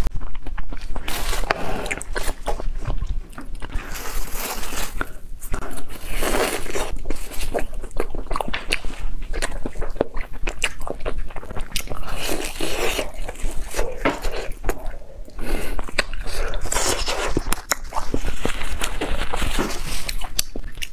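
Close-miked eating sounds: biting into and chewing deep-fried red bean bread, with irregular wet smacks and crackles.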